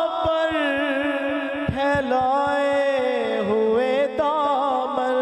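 Male voices singing a devotional naat verse unaccompanied, in long drawn-out notes that slide up and down and are held without a break.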